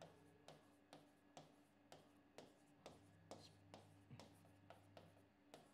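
Faint, regular taps of a pen drawing small circles on an interactive touchscreen board, about two a second, over a steady low hum.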